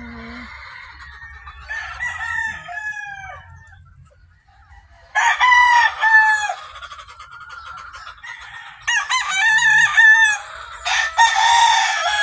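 Roosters crowing, three loud crows from about five seconds in, with softer clucking calls before them.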